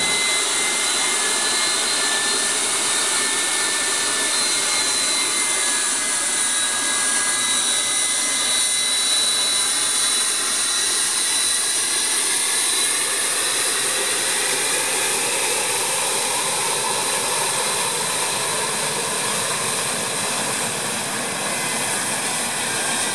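Twin Soloviev D-30-10V turbofan engines of an M-55 Geophysica running as the aircraft taxis: a steady jet rush with a high turbine whistle whose pitch drifts a little.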